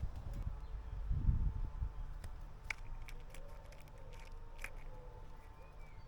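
Quiet outdoor ambience at a garden seed feeder: a low rumble that slowly fades, a few sharp clicks about two seconds apart, and faint thin distant tones.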